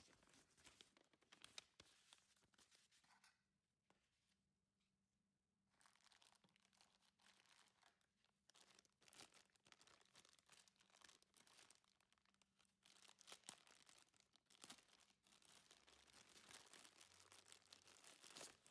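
Faint rustling of paper for the first few seconds, then, after a short quiet pause, a thin plastic bag crinkling on and off as a power adapter is unwrapped from it by gloved hands.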